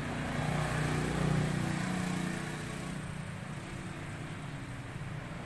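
A motor vehicle's engine running, a steady low hum that grows louder about a second in and then eases off.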